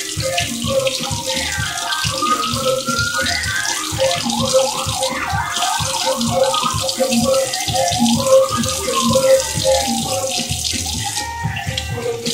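Kitchen tap running steadily into a sink, with music playing over it.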